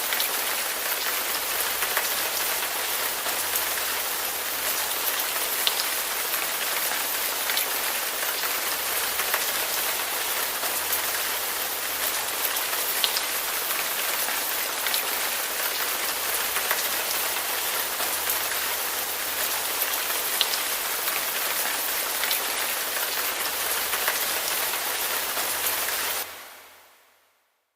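Steady rain falling, a dense even hiss with scattered sharper drops, fading out to silence near the end.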